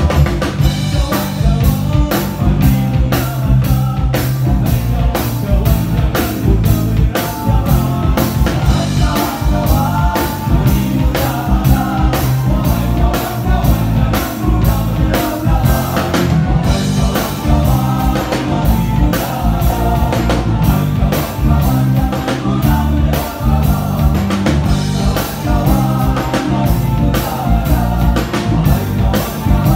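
Live band playing an upbeat song, with drum kit, congas, keyboards and guitar, while a vocal group sings over a steady drum beat.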